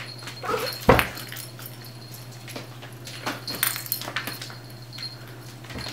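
A cat and a puppy playing on a hard floor: scattered light knocks and clicks, one sharper thump about a second in and a short squeak just before it, over a steady low hum.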